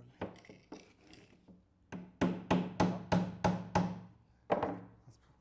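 Small hammer driving a small nail into a glued wooden joint. A few light taps come first, then a quick run of about eight blows at roughly three a second from about two seconds in, and one last blow near the end. The nail is there to hold the joint while the glue dries.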